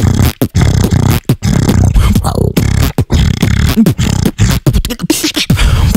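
Human beatboxing: a dense, bass-heavy groove of rapid mouth-made drum hits with sudden short gaps, over a deep humming bass line and a few brief sliding vocal tones.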